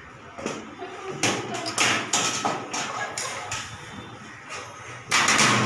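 Knife cutting through a chocolate sponge cake on a plastic cutting board: a series of short taps and scraping strokes, the longest and loudest near the end.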